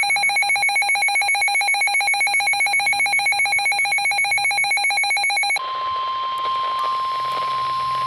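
Emergency weather alert tones. An electronic alarm tone pulses rapidly, about eight beeps a second, then cuts off about five and a half seconds in. A single steady alert tone takes over from that point.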